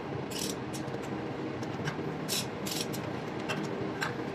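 Steady hum of running diesel machinery, with short high-pitched hissing ticks at irregular intervals.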